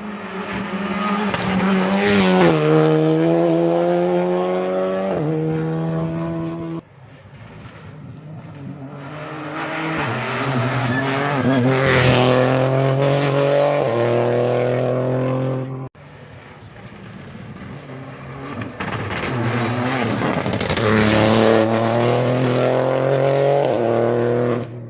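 Rally cars at full throttle on a closed stage, three separate passes one after another. Each engine note is loud and holds its pitch, then drops in several steps as the car goes by.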